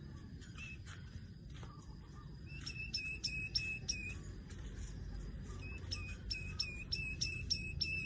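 Weaver bird giving its sharp 'cret cret' call, a quick run of about seven chipping notes, then a second run about two seconds later.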